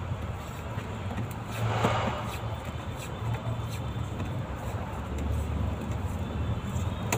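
Steady low rumble of a motor vehicle, with scattered light clicks and a brief rustle about two seconds in as wiring is handled under a car dashboard.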